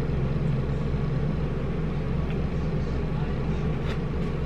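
Steady low background hum, with a faint click near the end.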